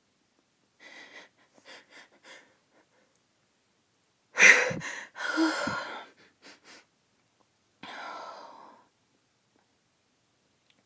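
A woman's uncovered sneeze: a few short, faint catching breaths, then a loud sneeze about four seconds in, followed near the end by a softer breathy sound about a second long.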